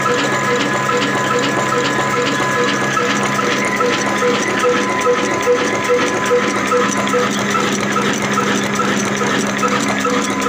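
Slow-speed 18/20 HP desi black diesel oil engine, rated at 300 RPM, running steadily with a regular beat of about two to three strokes a second.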